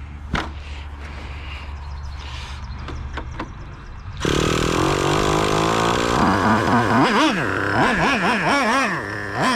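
A Traxxas Revo 3.3's two-stroke nitro engine being restarted: a low steady drone for about four seconds, then the engine suddenly fires and runs. From about six seconds in it is revved up and down in quick blips. The engine is brand new and still being broken in.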